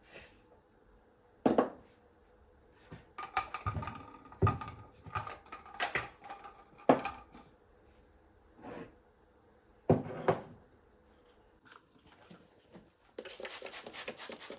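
Kitchen work with dishes and utensils: scattered clinks and knocks as things are set down and handled, then a quick, even run of strokes, about six a second, near the end.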